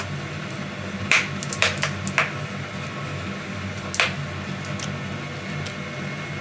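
Kitchen handling sounds at a frying pan: a few sharp plastic clicks and taps about a second in and again near four seconds, as a ketchup bottle is capped and a garlic paste tube is opened. A steady low hum runs underneath.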